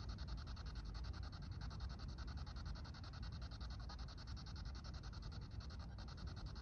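P-SB7 Spirit Box radio scanner sweeping through the FM band: a steady hiss of radio static, chopped into rapid, evenly spaced pulses as it jumps from station to station.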